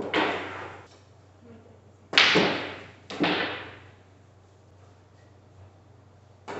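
Hard clacks of billiard balls during pool shots: one right at the start, then two about a second apart from about two seconds in, each trailing off over most of a second.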